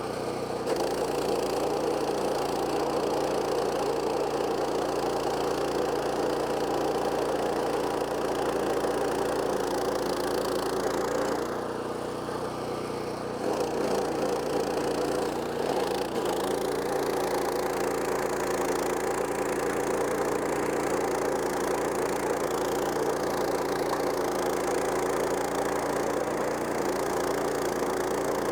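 PowerKing PK0803 stump grinder's 14 HP Kohler Command Pro single-cylinder engine running steadily at speed while the carbide-toothed cutting wheel grinds into a stump. The sound drops for about two seconds near the middle, then comes back.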